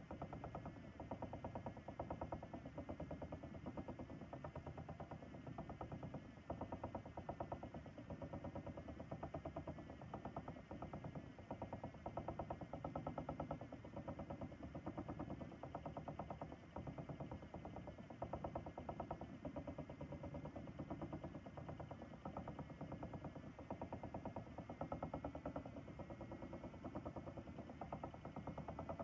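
Ashford e-Spinner electric spinning wheel running, its motor and flyer whirring steadily as yarn is spun onto the bobbin.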